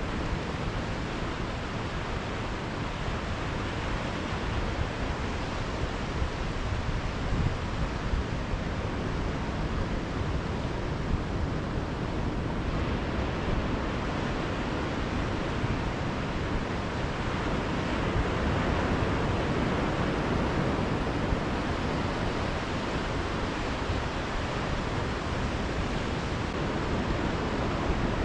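Steady wash of ocean surf on a beach, mixed with wind rumbling on the microphone.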